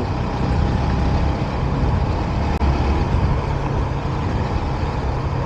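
Motorcycle riding along: a steady engine hum under wind and road noise.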